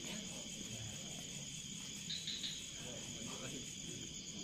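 Night insects, crickets or similar, chirring steadily in a high-pitched chorus, with faint voices in the background.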